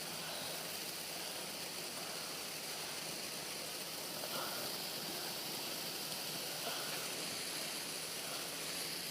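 Steady rush of water spraying from a hose set to jet, filling a bucket, an even hiss with no breaks.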